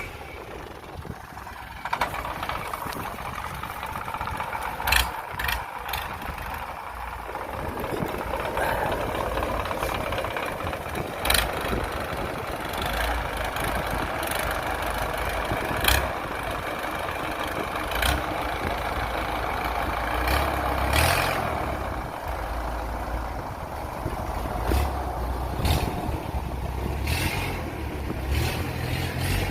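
Heavy diesel engine running steadily, with sharp metallic clanks now and then.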